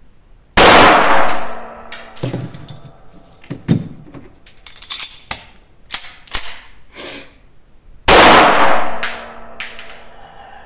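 Two .22 LR semi-automatic pistol shots, one about half a second in and one about eight seconds in, each very loud and ringing on for about a second in a small booth. Metallic clicks of gun handling come between them.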